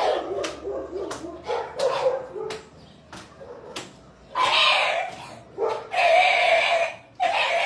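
A dog yelping and whimpering: short yelps among sharp clicks or knocks at first, then longer, louder cries from about four seconds in.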